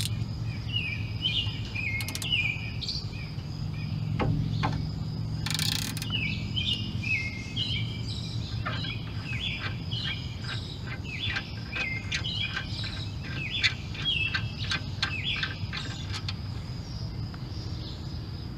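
A songbird chirping a short stepped phrase over and over, over a low steady hum. Through the middle and later part come a few seconds of quick regular metallic clicks: a ratchet wrench backing out the 18 mm caliper bracket bolts on a 2003 Ford F-150's front brake.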